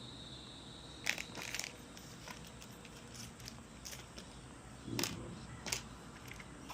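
Faint handling of small parts, with light rustling and a few sharp clicks: one about a second in, a couple near five seconds in.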